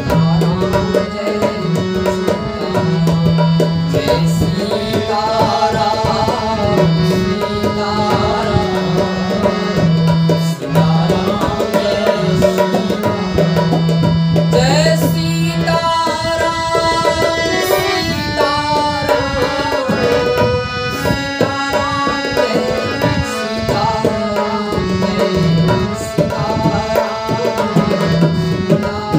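Instrumental music: hand drums of the tabla kind keep a steady rhythm under a melody, over a low bass note that steps between a few pitches.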